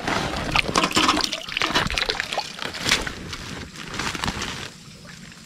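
Shallow muddy water sloshing and splashing as a person wades and gropes in it by hand; it quiets down about four and a half seconds in.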